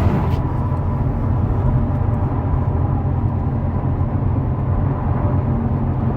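Tyre road noise heard inside the cabin of a 2018 Subaru WRX STI at speed: a steady low rumble with a faint high ringing tone from its Yokohama Advan tyres, which the driver takes for the sign of a hard tyre. The coarser hiss eases just after the start.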